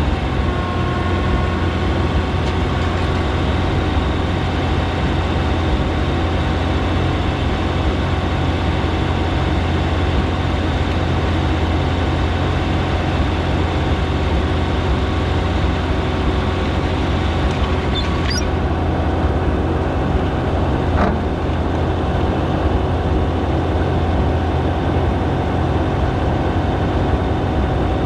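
Oliver 77 tractor's six-cylinder engine running steadily as the tractor pulls a plow.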